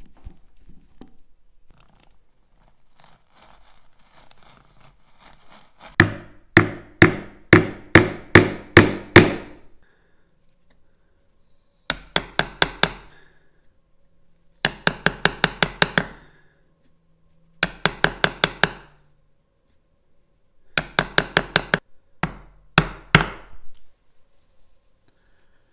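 A narrow chisel struck with quick, light taps, chopping small hinge mortises into a birdseye maple door. The taps come in six bursts of several strikes each, the first and longest beginning about six seconds in, with short pauses between bursts.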